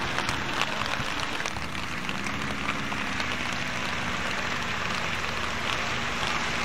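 Steady hiss of falling rain with a fine crackling patter of drops.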